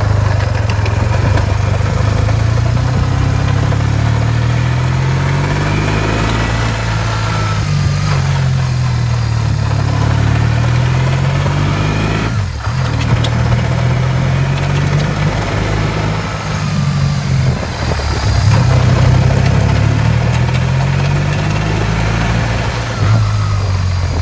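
BMW R1150GS air/oil-cooled boxer-twin engine idling, its speed drifting up and down slightly a few times. It carries the knock or tick that the owner is recording to investigate.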